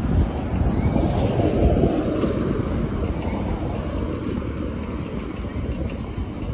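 Steady rushing wind on the microphone and road rumble from a bicycle being ridden along pavement.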